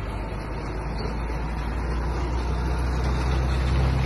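Boat engines idling: a steady low hum under an even hiss.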